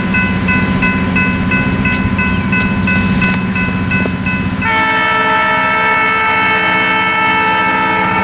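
Railroad crossing's General Signals Type 3 electronic bell dinging rapidly, about three strikes a second. About halfway through, the approaching EMD SW1500 switcher's horn sounds one long blast over it, with a steady low rumble underneath.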